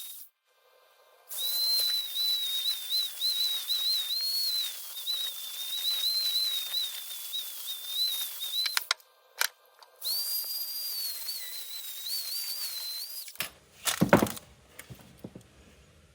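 Dremel rotary tool running on a plastic zipper with a high whine that wavers slightly in pitch as it bears on the work, pausing briefly twice and stopping about thirteen seconds in. A loud clatter follows shortly after.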